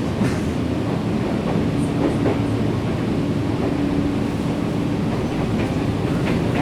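Nankai 7100-series train heard from inside the carriage: a steady low rumble and hum with a level tone, and a few light clicks.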